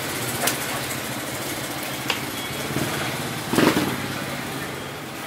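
A small engine idling steadily, with three sharp knocks over it, the loudest about three and a half seconds in.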